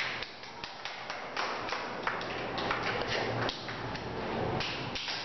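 Scattered light taps and thuds, several a second and unevenly spaced, from people moving about on a tiled classroom floor.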